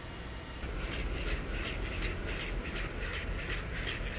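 Boston Dynamics Spot four-legged robot walking on a concrete floor: its feet tap in a regular rhythm, about three steps a second, starting about half a second in, over a steady low hum.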